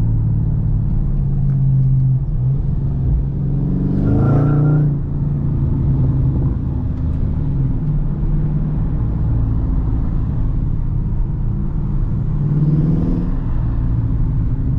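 Dodge Charger Scat Pack's 392 Hemi V8 running while under way. The revs rise briefly about four seconds in and again near the end.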